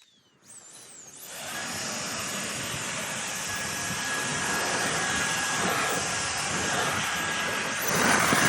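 Battery-powered jet blower (Storm Industries Jet Blower Pro) spinning up about half a second in, then running steady with a rush of air and a thin high whine. It gets louder near the end, as if the trigger is pressed harder.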